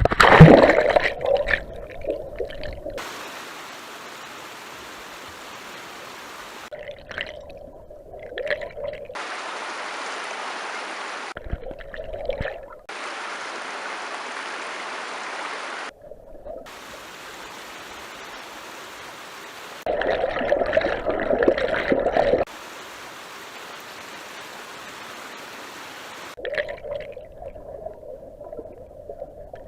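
Creek water rushing and splashing around a person wading and sitting in it, with a loud splash right at the start and another louder stretch of splashing a little past two-thirds of the way in. The steady rush of the stream cuts in and out abruptly several times.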